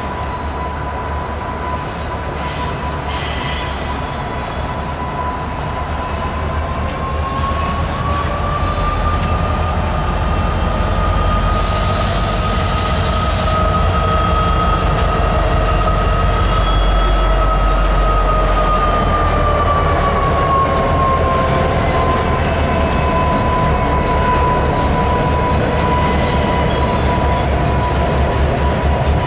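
Norfolk Southern SD60E diesel locomotive passing slowly at the head of a welded rail train. Its deep engine rumble swells as it goes by, a short hiss comes midway, and a steady high whine rises a little in pitch and falls back. The rail cars roll by after it.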